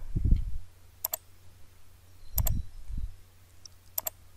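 Computer mouse button clicking three times, each click a quick press-and-release double tick, spaced about a second and a half apart. Dull low thumps sound near the start and in the middle.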